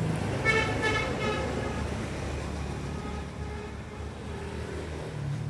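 An engine running steadily at an even speed. A short high-pitched sound pulses three times over about a second near the start.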